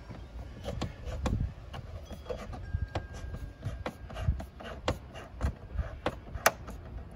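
Screwdriver tightening a worm-gear hose clamp on a rubber air-intake tube: a string of irregular sharp clicks over low handling rumble.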